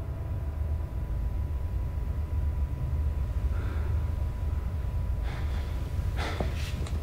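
A deep, steady low rumble of dramatic sound design, with a faint thin steady tone above it. In the last two seconds come a few short, sharp breathy gasps.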